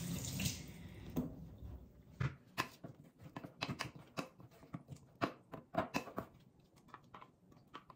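Spoon stirring a thin sauce of chopped green onion in a small stainless steel bowl, with quick, irregular clicks and scrapes against the metal.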